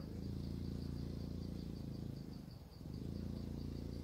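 Crickets chirping in a steady pulse, about five chirps a second, over a low steady engine hum that dips briefly about two and a half seconds in.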